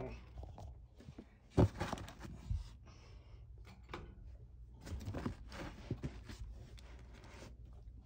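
Fidget toys being handled and set into a wire basket: a sharp knock about one and a half seconds in, a softer thud a second later, then scattered small clicks and rustles.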